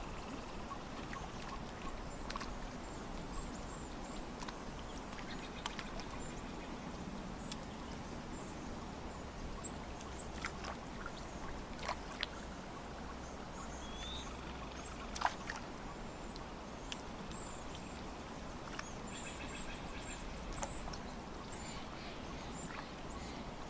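Lakeside nature ambience: a steady soft wash of water with scattered small lapping splashes and clicks, and faint high bird chirps.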